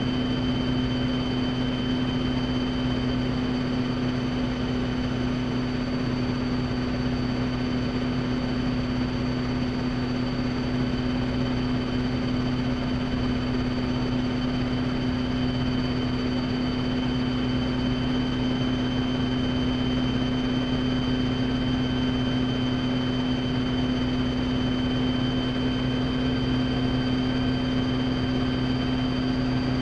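Rotorway kit helicopter in flight, heard from inside the cockpit: engine and rotor drive running steadily with a constant low drone and a thin high whine.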